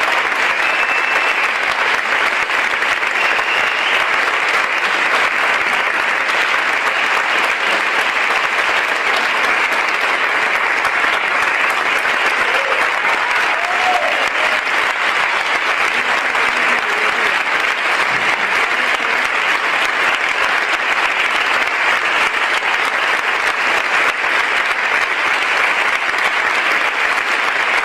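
Audience applauding without a break, a long, steady ovation.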